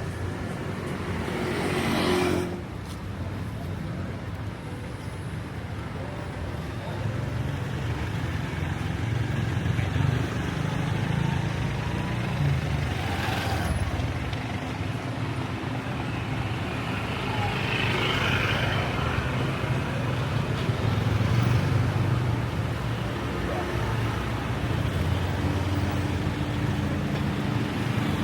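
Street traffic: motor vehicle engines running and passing close by, a steady low hum that swells and fades.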